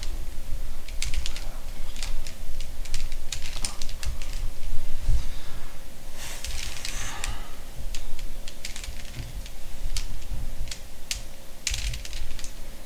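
Rubik's Cube layers being turned by hand: quick runs of plastic clicks and clatter with short pauses between them, as algorithm moves are worked through.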